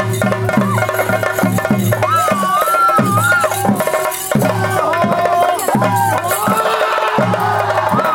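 Traditional ritual music: drums beat a steady rhythm about twice a second under rattling, jingling percussion, while a high melody wavers and glides above them.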